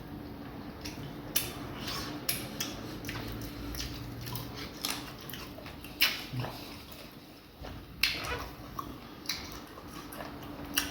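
Close-up eating sounds of fufu and vegetable soup eaten by hand: irregular wet chewing and lip-smacks, with a few sharper clicks, over a low steady hum.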